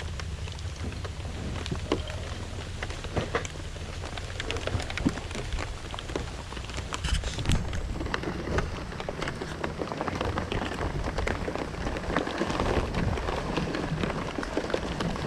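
Heavy rain coming down, a dense hiss of close drop hits, a little fuller in the second half.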